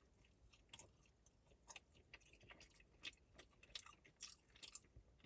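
Faint, close-up chewing of a breakfast sausage sandwich, with soft irregular mouth clicks several times a second.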